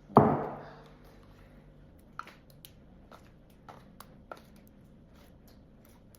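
Greek yogurt being handled with a spoon and bowl: a dull thump right at the start that dies away over about a second, then a few light clicks and taps of the spoon against the container.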